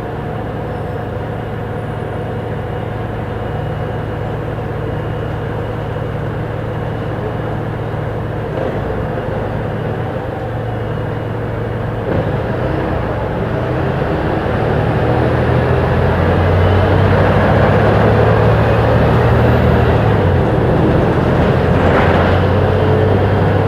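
Volvo B290R city bus with a Voith automatic gearbox, its engine running steadily and growing louder from about halfway through as it pulls harder.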